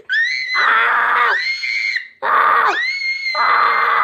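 A child screaming: long, high-pitched shrieks with a short break about two seconds in.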